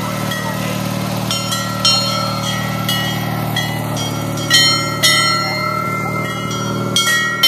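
Large rope-pulled bells on pedal parade carts clanging, struck irregularly many times, each stroke ringing on; the loudest comes about four and a half seconds in. A small lawn tractor engine runs steadily underneath.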